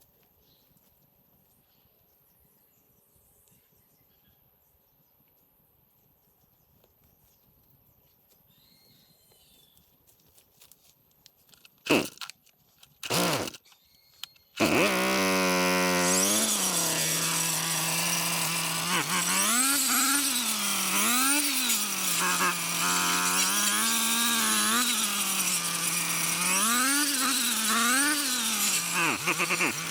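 Gas brush cutter (a weed eater fitted for cutting brush) starting: two short loud bursts like pulls of the starter cord, then the small engine catches and runs loud, its pitch rising and falling again and again as the throttle is squeezed to cut brush.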